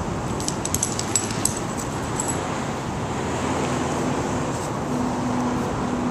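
Steady traffic noise from passing road vehicles, with a quick run of light, sharp ticks in the first couple of seconds and a faint low hum in the second half.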